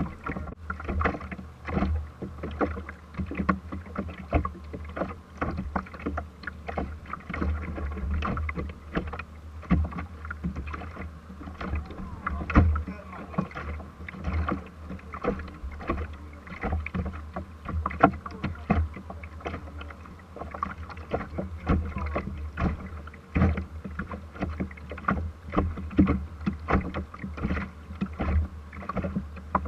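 Small waves lapping and slapping against the hull of a small boat, picked up through a camera sitting on the bow deck: an uneven run of knocks and splashes over a low rumble.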